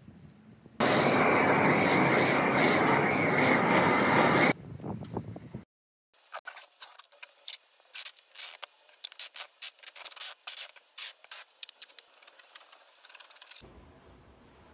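A loud steady rushing hiss for about four seconds, then a quick irregular run of crackles and scrapes as packing tape is laid and rubbed down along a plywood tabletop edge.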